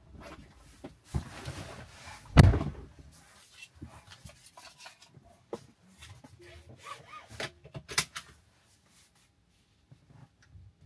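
Car door shutting with a heavy thump about two and a half seconds in, amid clicks and rustles of handling inside the cabin, with a sharp click near the end.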